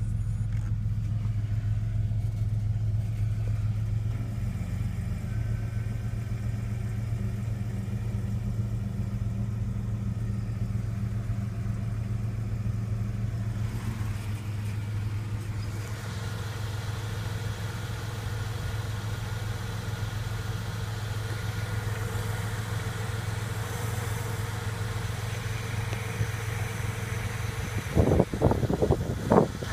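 Jeep engine idling steadily with a low, even hum. It is heard first from inside the cabin, then more openly once the door is opened about halfway through. Near the end come a few short, loud clatters.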